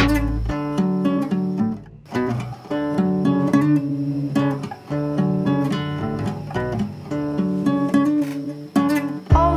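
Background music of acoustic guitar, plucked and strummed, with a brief break about two seconds in.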